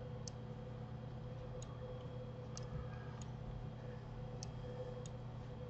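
Faint computer mouse clicks, about six of them at irregular intervals, over a steady low hum.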